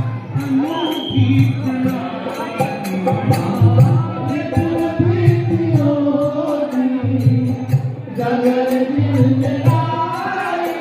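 Hindu devotional chant (kirtan) sung by a man into a microphone, over a steady jingling percussion beat and a low drum-like pulse.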